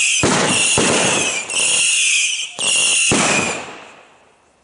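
Mascletà of ground-fired fireworks: shrill whistles in bursts of about a second, overlapping with sharp bangs. The barrage stops about three and a half seconds in and fades out.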